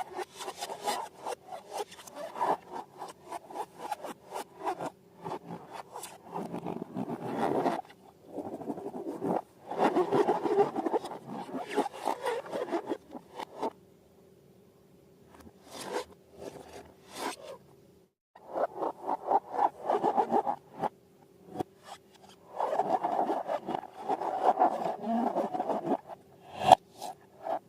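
Slime and balloons being handled by hand, making rubbing, crackling and squishing sounds in bursts of a second or two, with a few short pauses.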